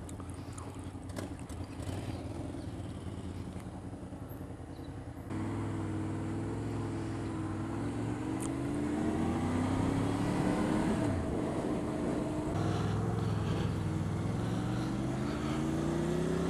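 Honda VFR800 V4 motorcycle engine pulling away and accelerating through the gears. It runs low and steady for about five seconds, then the pitch climbs, drops at a gear change about eleven seconds in, and climbs again.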